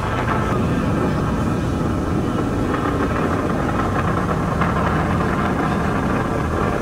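Falcon 9 Block 5 rocket's nine first-stage Merlin engines firing in flight during ascent. It is a steady, unbroken noise, heaviest in the low range.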